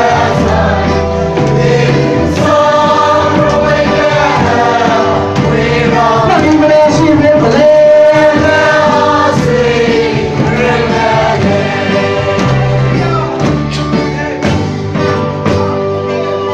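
A group of men singing a Christian song together in chorus through a microphone, over instrumental accompaniment with a bass line that changes note about every second.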